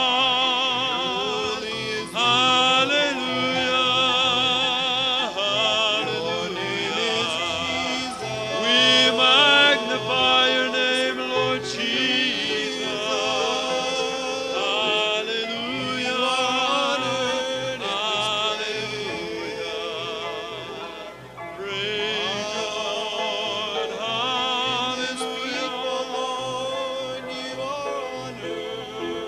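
Congregation singing a spontaneous new song: many voices sustaining and gliding freely with vibrato, without set words. It grows briefly softer about two-thirds of the way through, then swells again.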